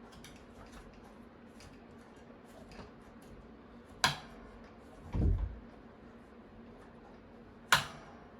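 Small clicks and handling taps as the clip ring of a pedestal fan's metal front grille is worked into place, with two sharp loud clicks, one about halfway through and one near the end, and a dull thump between them.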